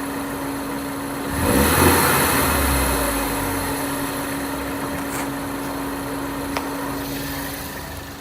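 2013 Ford Focus ST's 2.0-litre turbocharged four-cylinder engine running, with a steady whine on top. The whine is the high-pitched noise from the lower left of the engine that rises with rpm, which the owner suspects is an idler bearing or valve train noise. A louder swell of noise comes about a second and a half in, and there is a single short click near the end.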